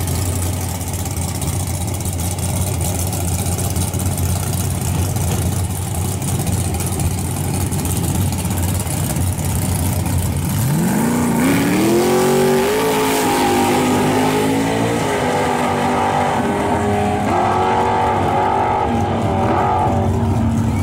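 Drag-racing pickup truck's engine idling with a steady low rumble at the starting line, then about ten seconds in it launches and revs hard, the pitch climbing and dropping back at each of several gear shifts as it pulls away down the track.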